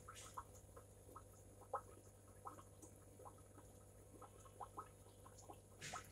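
Faint steady hum of an aquarium air pump, with irregular short blips, a few a second, from bubbles in the sponge filter, and a brief hiss near the end.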